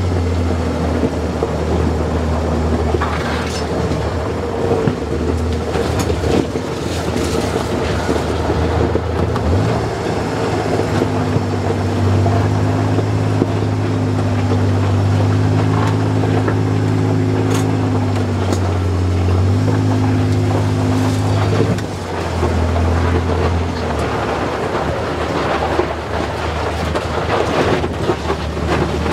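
Kawasaki Mule Pro-FXT side-by-side's three-cylinder engine running at low trail speed, its note rising and falling with the throttle and easing off briefly about two-thirds through. Scattered knocks and rattles come from the machine bumping over a rough dirt track.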